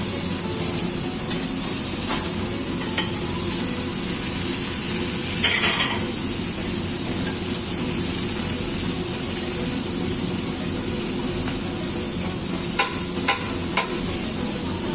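Food sizzling as it is stir-fried in a hot wok, a steady frying hiss, with a few short metal clicks of utensils on the pan about halfway through and again near the end.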